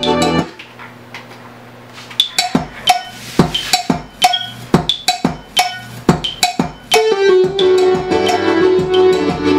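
Instrumental track built from Yamaha YPT-210 keyboard sounds. The full arrangement drops out half a second in, and a run of sharp percussion hits picks back up about two seconds in. The full arrangement returns with a held low note about seven seconds in.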